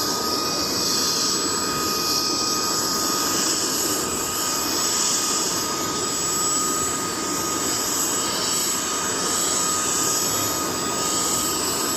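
CH-47 Chinook's auxiliary power unit running with a steady, high whine while both engines are shut down and the tandem rotors coast down on inertia.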